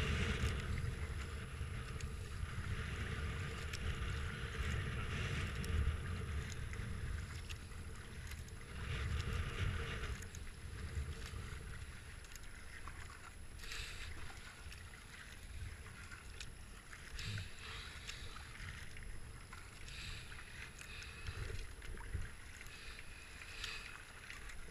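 Kayak being paddled: the paddle blades dip and splash and water washes along the hull, with wind rumbling on the microphone.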